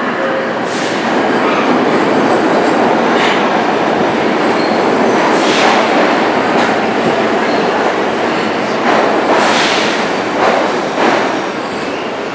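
R46 subway train pulling into the station: a steady rumble of steel wheels on the rails, broken by repeated sharp clatters as the cars roll past.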